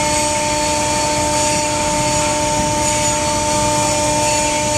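Hydraulic power unit running steadily: an even mechanical drone with a constant whine of several steady pitches.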